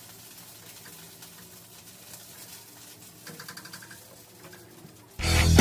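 Faint kitchen sounds with a brief burst of rapid clicking about three seconds in. Loud rock music with guitar starts abruptly near the end.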